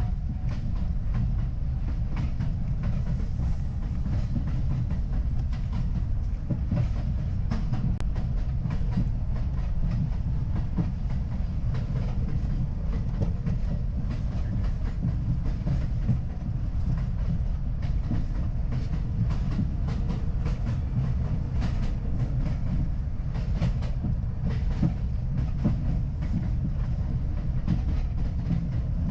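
R62A subway train running along the track, heard from inside the car: a steady low rumble with wheels clicking irregularly over rail joints.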